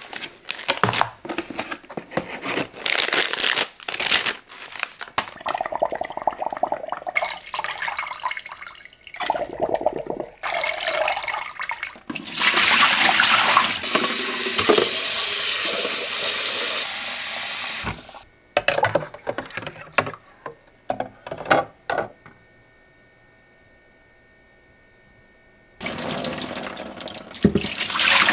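Unpacking rustles and handling clicks, then a kitchen tap running steadily into a plastic filter pitcher for about six seconds as a new filter cartridge is rinsed. More clicks follow, a quiet gap, then the tap runs again near the end.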